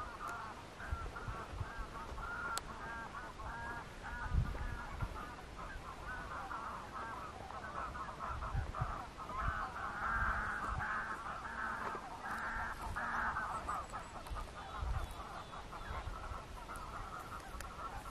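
A large flock of geese honking, many short calls overlapping in a dense chorus that swells about ten seconds in and thins out near the end. A few low thumps come through as well, the strongest about four seconds in.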